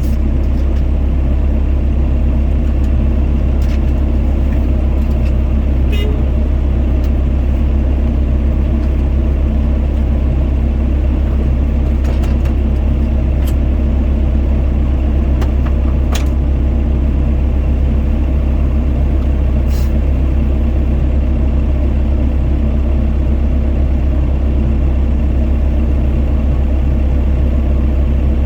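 Doosan DX55 mini excavator's diesel engine running steadily at working speed while digging, with a few faint clicks scattered through it.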